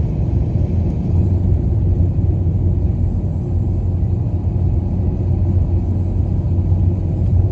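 Car driving at a steady speed, heard inside the cabin: a steady low rumble of tyres and engine.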